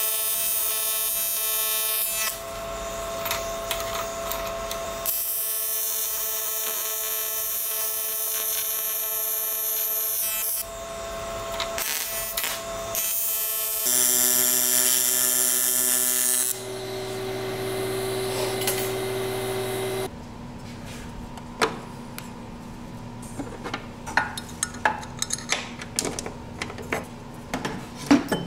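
TIG welding arc buzzing steadily on an aluminium bracket, in several runs of a few seconds each that start and stop abruptly as the torch is struck and released. For the last third, quieter light metallic clicks and clinks of parts being handled.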